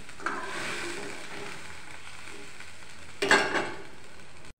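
Water with tempered mustard seeds, green chillies and curry leaves bubbling in a metal kadhai as the dhokla syrup comes to the boil. A louder scrape of a steel ladle against the pan comes about three seconds in.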